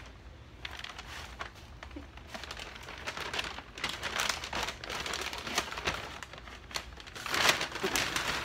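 A bag rustling and crinkling in irregular bursts as someone climbs into it, loudest near the end.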